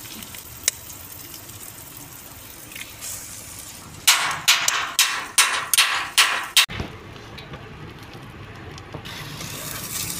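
Eggs being cracked into a wok of hot oil: a sharp crack of shell under a second in, then a quick run of short, loud sizzling hisses about four seconds in that cuts off suddenly, over a low steady hum.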